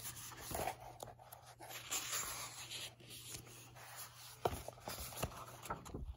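Pages of a hardback book being turned and handled: paper rustling, with a few sharp taps in the second half.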